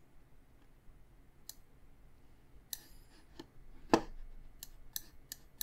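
Computer mouse clicking: a few scattered clicks, the loudest about four seconds in, then a quicker run of clicks near the end.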